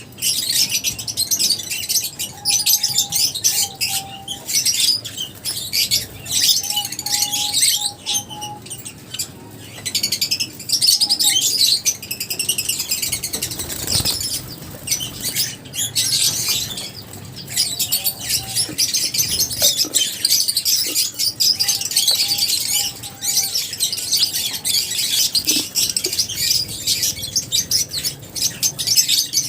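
A colony of lovebirds chirping continuously in high, rapid, overlapping calls.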